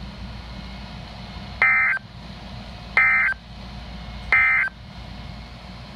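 Three short bursts of Emergency Alert System SAME data tones from NOAA Weather Radio, each about a third of a second long and roughly a second and a half apart. They are the end-of-message code that closes the severe thunderstorm warning. A low steady hum and hiss of the broadcast carries on between the bursts.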